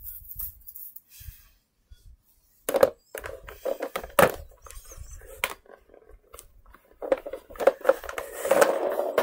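Handling noise from plush toys being moved about: soft rustling and scattered knocks and bumps, busiest and loudest in the last two seconds as a hand brushes close past the microphone.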